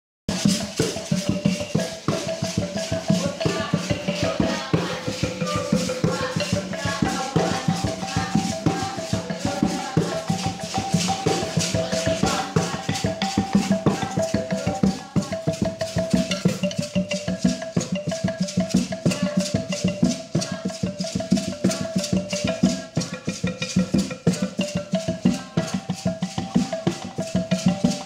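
Background music with a fast, busy percussion beat over steady held notes.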